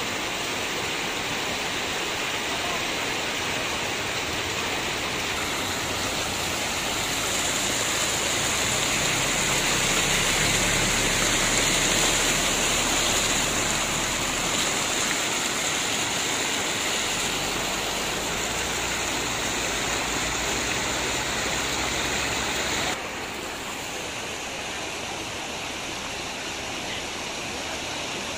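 Floodwater rushing across a paved road as a steady, churning noise of moving water. It swells louder near the middle, then drops suddenly to a quieter rush about four-fifths of the way through.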